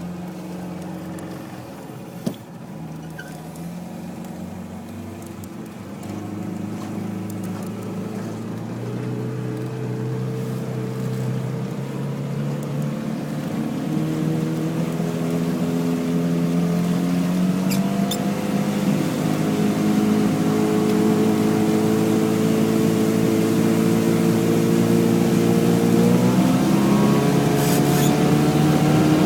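A 50 hp Mercury outboard motor accelerating on a speed run, its pitch and loudness climbing gradually and then rising more sharply near the end. The motor has had no tune-up. A single knock sounds about two seconds in.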